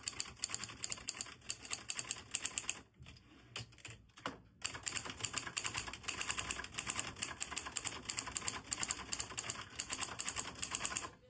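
Adler Junior 12 manual typewriter being typed on: rapid, uneven key strikes clacking, with a pause of about two seconds about three seconds in that holds a few separate clacks before fast typing resumes.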